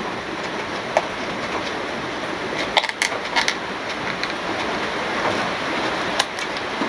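Scissors snipping through a paper cone cut from a file folder: a handful of short, sharp cuts at irregular intervals, over a steady background hiss.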